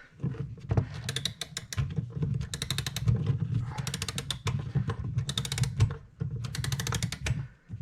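Mechanical clock mainspring being wound with a key: bursts of rapid ratchet clicks, about one burst a second, as the click rides over the ratchet wheel's teeth.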